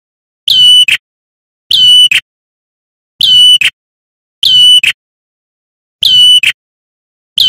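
Male ashy tailorbird calling, about six times, roughly once every 1.3 s. Each call is a loud, clear note that drops slightly and holds, then ends in a short, sharp note.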